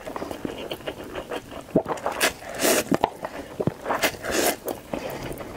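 A person eating instant noodles close to the microphone: several long, hissy slurps, with short wet clicks of chewing in between.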